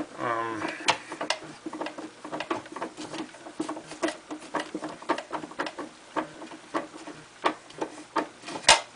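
An M9×0.75 threading die turned by hand on an aluminium rod, cutting a fine thread: an irregular run of sharp clicks and ticks, two or three a second, with one louder click near the end.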